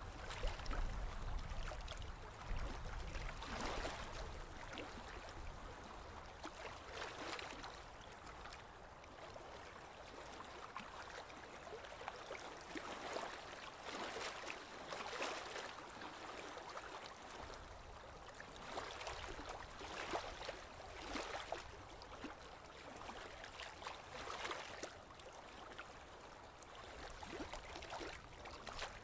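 Water splashing and swishing along the hull of a boat under way, in irregular surges every second or two, with a low rumble in the first few seconds.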